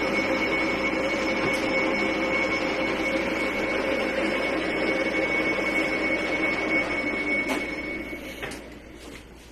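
Lathe running steadily with a high whine over its motor hum, then falling away about eight seconds in as it is stopped, with a click as it winds down.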